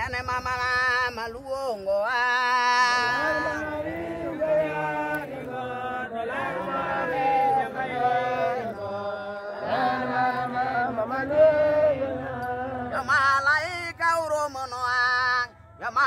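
Church members chanting a hymn together. A single voice leads alone at the start and again near the end, with many voices joining in between.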